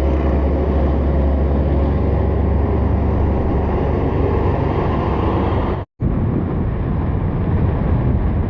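Wind rushing and buffeting over the action camera's microphone on a moving Honda Beat FI scooter, with the scooter's small single-cylinder engine and road noise underneath. The sound cuts out abruptly for a moment about six seconds in, then resumes.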